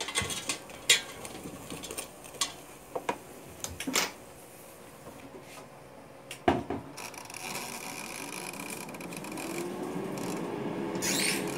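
Clatter and knocks of a Britânia air fryer's basket being handled, with a loud knock about six and a half seconds in as the basket goes back in. The air fryer's fan then starts with a steady whir and a hum that rises slightly in pitch, restarting for another 15 minutes of cooking.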